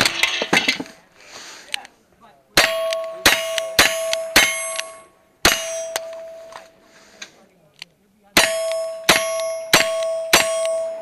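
.22 rimfire gunfire at steel targets. Strings of quiet shots come about half a second apart, each hit setting the steel plates ringing with a sustained clang, with a short pause between strings.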